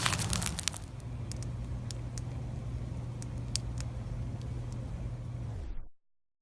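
Floam slime being worked by hand, its foam beads crackling in a dense run of clicks at first, then only a few single pops, over a steady low hum. It fades out near the end.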